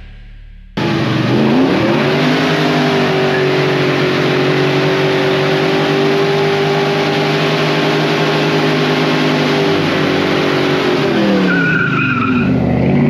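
Muscle car doing a burnout: the engine is held at high revs while the spinning rear tyres squeal and hiss, cutting in suddenly about a second in. Near the end the revs drop and then climb again.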